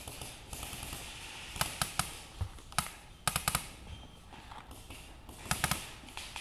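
Paintball markers firing in quick strings of sharp pops, two to four shots at a time, about a second and a half to three and a half seconds in and again near the end.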